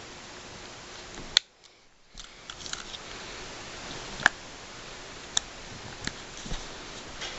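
Sharp plastic clicks and taps from handling an Olympus Stylus VG-190 compact camera, its buttons and battery compartment being worked. There is a loud click about a second and a half in, a few small ones soon after, another loud click near the middle, then lighter ones every second or so. The camera is failing to switch on, which the owner puts down to a battery fitted the wrong way.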